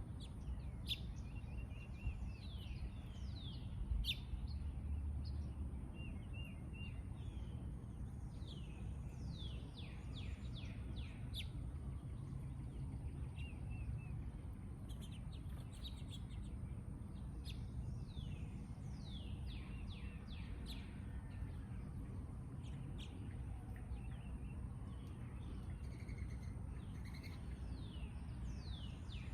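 Several songbirds chirping and calling, in clusters of quick downward-sweeping chirps with a few short trills, over a steady low background rumble.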